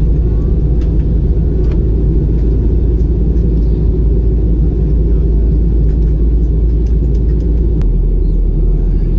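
Steady, loud low rumble of airliner cabin noise, the jet engines and airflow heard from a window seat of an Airbus A320-family jet in flight. A few faint clicks sound above it.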